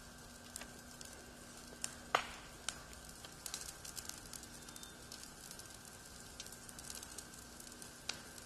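Wildfire burning through leaf litter and brush on a forest floor: a steady hiss with scattered sharp crackles and pops, the loudest about two seconds in.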